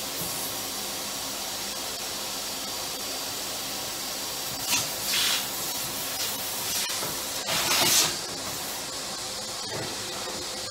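Vacuum cleaner running with its nozzle worked against a microwave's air vents to suck out dust: a steady rush of air, with two brief louder surges of suction about five and eight seconds in.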